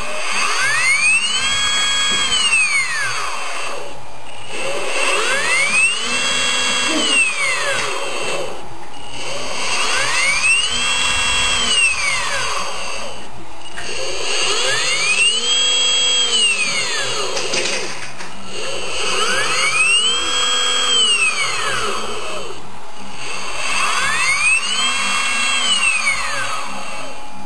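Brushless DC motor driven by an electronic speed controller, whining as it repeatedly speeds up and slows down: the pitch climbs to a peak and falls again about every four and a half seconds, six times over.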